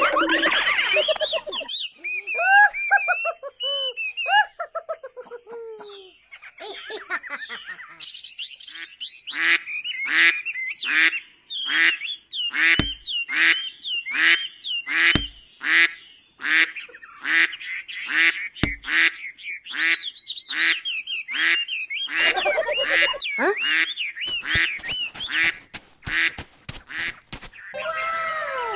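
Duck quacking in a long regular run of short calls, about two a second, after some higher chirping calls at first. Three low thumps fall in among the quacks.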